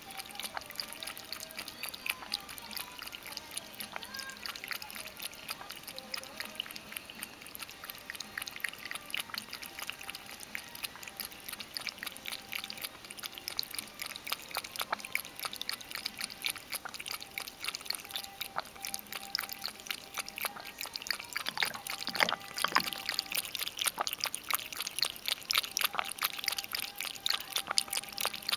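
Ragdoll cat lapping water from a bowl: a steady run of quick, wet clicks, growing louder toward the end.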